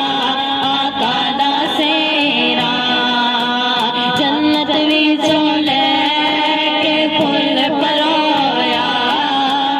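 A woman singing a naat, an Urdu devotional song in praise of the Prophet, into a microphone, in long held notes that waver and bend in pitch without a break.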